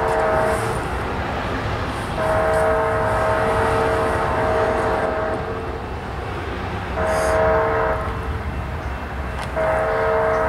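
Approaching train's multi-chime locomotive air horn sounding the grade-crossing signal: the tail of a long blast, then a long blast, a short one, and another long one starting near the end, over a steady low rumble.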